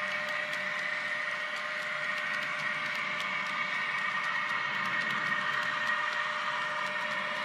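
HO-scale model express train with Rheingold coaches running along the track: a steady motor whine with the rolling of the wheels and faint light clicking.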